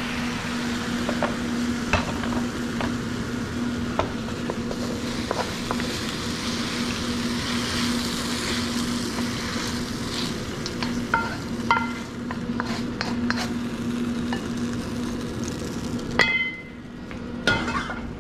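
Kung pao chicken sizzling in a wok while a spatula scrapes and taps against the pan, over a steady low hum. About sixteen seconds in, the wok clanks down onto the range with a brief metallic ring.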